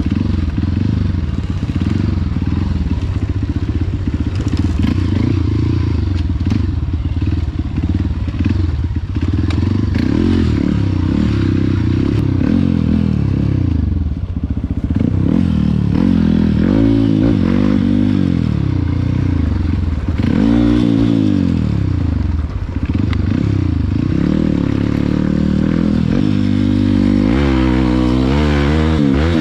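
Off-road trail motorcycle engines running hard, the revs swooping up and down again and again in the second half.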